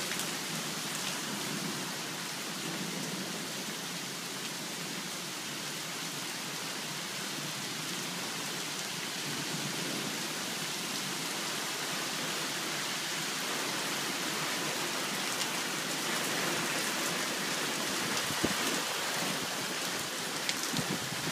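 Heavy thunderstorm rain falling steadily, a little heavier in the second half, with a few sharp taps near the end.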